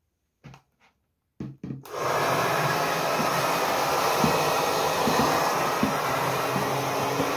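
A few faint handling knocks, then a hair dryer switched on about two seconds in and running steadily on hot air, blowing into the neck of a plastic jug.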